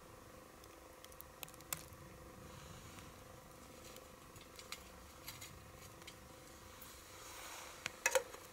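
Small wood gas stove burning under a pot of melting snow: faint scattered crackles and ticks over a low steady hum, with a quick cluster of louder clicks near the end.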